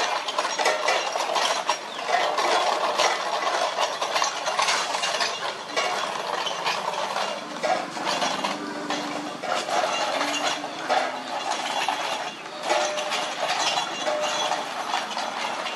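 Homemade pedal drive built from an angle grinder's gear head, turned by foot pedals: its gears run with a rapid, continuous clatter of clicks.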